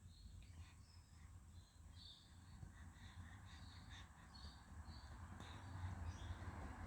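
Near silence: a low steady hum with faint, brief high-pitched chirps every half second or so.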